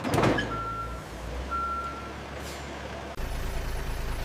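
A vehicle's reversing alarm sounding two steady high beeps, each about half a second long, after a short loud hiss at the start. Underneath runs a low steady rumble that gets louder about three seconds in.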